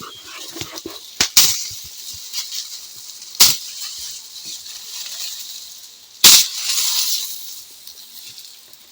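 Dry maize stalks and leaves rustling, broken by sharp cracks: two close together just over a second in, one about three and a half seconds in, and the loudest just past six seconds, followed by about a second of heavier rustling.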